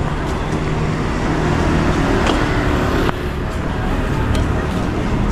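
City road traffic: vehicles running past with engine rumble and tyre noise, loudest about two to three seconds in.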